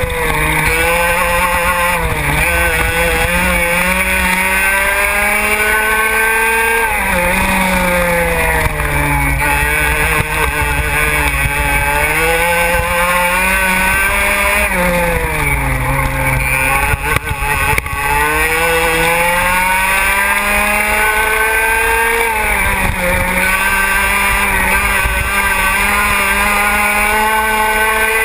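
125 cc two-stroke racing kart engine at full throttle, recorded close up on the kart. Its pitch climbs steadily on the straights and drops sharply several times as the kart slows for corners, then climbs again.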